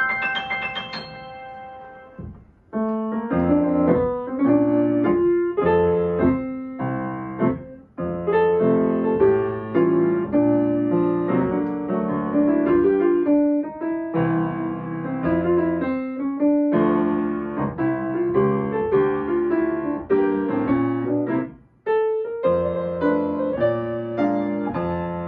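Solo piano music. A held chord fades out over the first two seconds, then the playing breaks off briefly a few times, each time resuming with a new passage.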